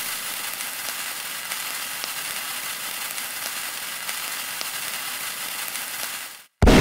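App sound effect of a lit fuse burning along a rope, a steady crackling sizzle. It cuts out briefly near the end, then a loud sudden burst starts.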